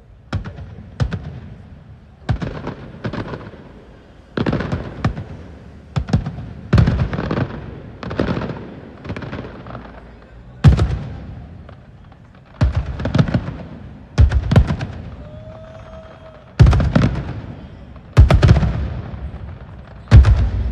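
Aerial fireworks shells bursting one after another: sharp bangs every second or two, each with a rolling, rumbling echo, some coming in quick clusters of several reports. The loudest bursts land near the middle and toward the end.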